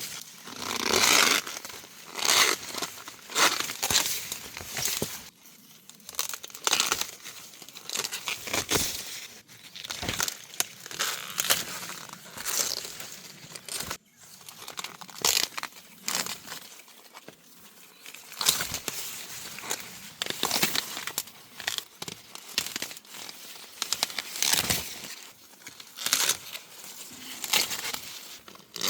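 Sweet corn leaves and husks rustling in irregular bursts, a few every couple of seconds, as ears of corn are handled and picked from the stalks.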